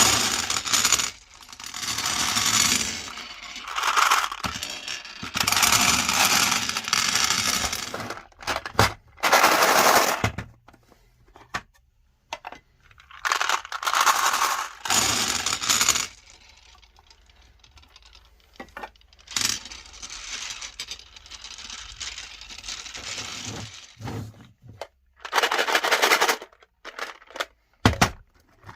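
Meat grinder crunching hard candy: loud spurts of cracking and crackling, a second or two at a time, with short quieter gaps between them.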